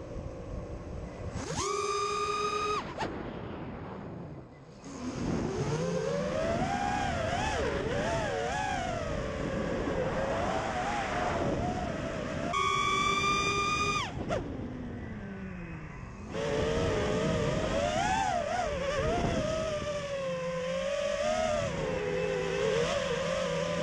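FPV quadcopter's brushless motors whining, the pitch constantly rising and falling with the throttle. Twice a steady higher whine holds for about a second and a half and then cuts off abruptly.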